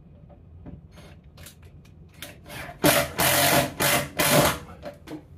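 A drywall screw being driven through a plastic conduit strap into a wooden ceiling joist, in three short loud bursts starting nearly three seconds in, after a few light clicks.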